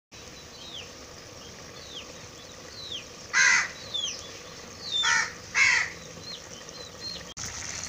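A crow caws three times, once about three and a half seconds in and twice close together about five seconds in, while a smaller bird repeats a short downward-slurring whistle about once a second. Near the end a steady hiss takes over.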